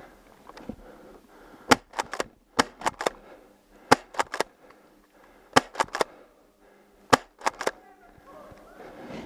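Airsoft shotguns firing: about fifteen sharp pops in quick clusters of two or three, between about one and a half and eight seconds in.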